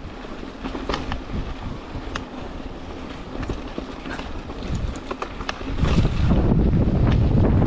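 Mountain bike rolling over a rough trail: scattered clicks and knocks from the tyres and frame over a noisy haze. About six seconds in, wind buffeting the microphone grows loud and rumbling.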